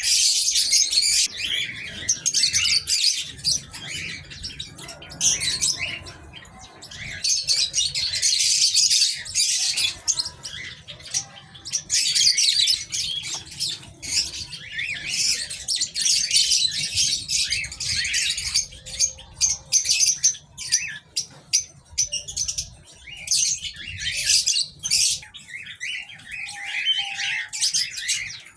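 Many small aviary birds chirping and chattering at once: a dense, high twittering with louder swells.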